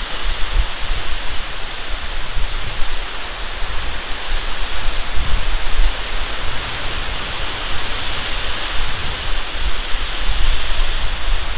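Steady wind noise on an outdoor nest-cam microphone: an even rushing hiss, with uneven low rumble as gusts hit the microphone.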